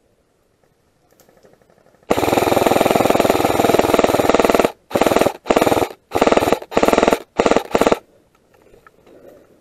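Airsoft gun firing on full auto: one long burst of about two and a half seconds, then about five short bursts in quick succession.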